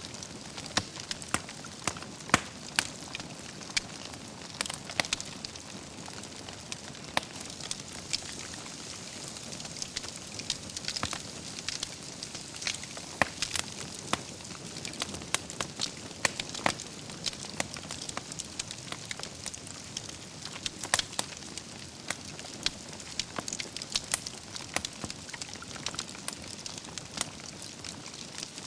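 Wood fire burning in a fireplace: irregular sharp crackles and pops over a steady soft hiss.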